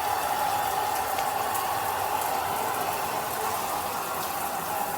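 Handheld shower head spraying water: a steady hiss of running water.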